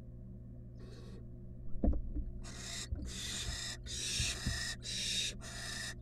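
Barn owl nestlings giving hissing, rasping begging calls: one short hiss about a second in, then a run of five longer hisses from about halfway, with brief gaps between them. Soft bumps from the birds moving on the nest box floor and a steady low hum sit underneath.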